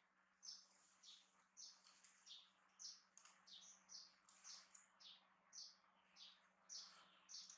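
Faint, high-pitched chirping calls from a small animal, repeated about twice a second, each call sliding down in pitch.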